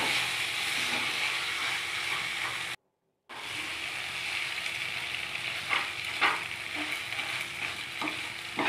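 Penne and tomato-onion sauce sizzling in a kadai while a spatula stirs through it, with several short scrapes against the pan in the second half. The sound cuts out completely for about half a second near three seconds in.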